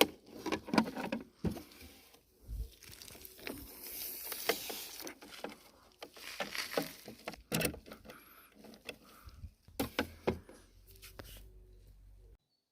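Irregular clicks, knocks and rustling of things being handled, with a stretch of hiss about four seconds in. The sound cuts off suddenly near the end.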